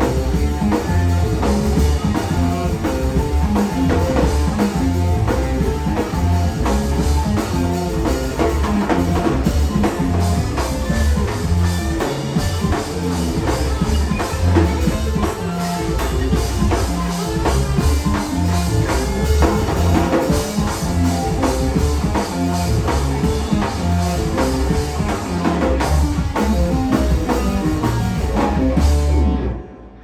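Live rock band playing an instrumental passage: drum kit, electric guitar, bass guitar and keyboards, with a heavy bass line. The music cuts off near the end.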